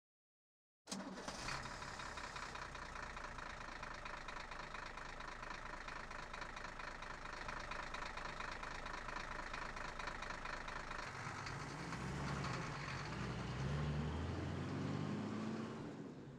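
An engine running steadily. It starts abruptly about a second in, and deeper tones shift in its low end over the last few seconds.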